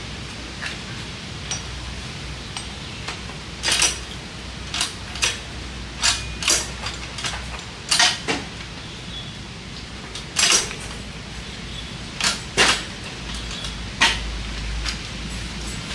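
Irregular metallic clinks and knocks of a wrench working the bolts on a mini tiller's metal gearbox housing while a pump set is being mounted. About a dozen sharp strikes come at uneven intervals, with the loudest clusters around four, eight, ten and twelve seconds in.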